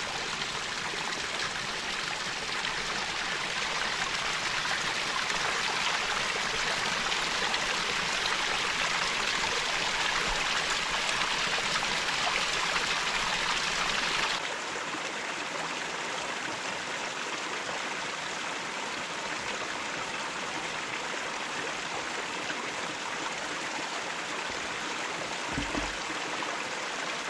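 Stream running: a steady rush of water that becomes slightly quieter and duller about halfway through.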